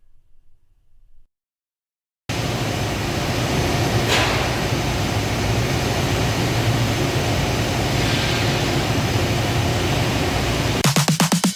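CNC lathe running during machining: a steady mechanical hum with hiss that starts suddenly about two seconds in, with a brief brighter scrape about four seconds in. Near the end a fast pulsing electronic beat begins.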